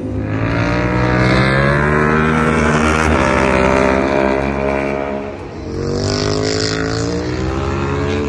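Racing motorcycle engine at high revs as it passes, the pitch climbing as it accelerates. It drops off briefly about five and a half seconds in, then revs up again.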